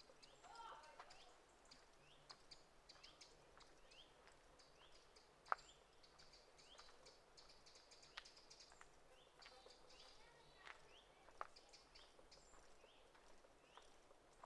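Faint birdsong: small birds chirping with short rising calls, repeated many times. There are a few scattered sharp clicks, the loudest about five and a half seconds in.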